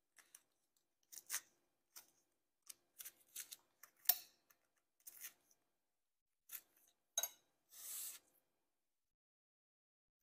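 Sharp knife cutting and scraping parchment paper at the base of a cheesecake, tucking it under: faint, irregular dry scrapes and paper rustles, with one sharp click about four seconds in and a longer scrape near eight seconds.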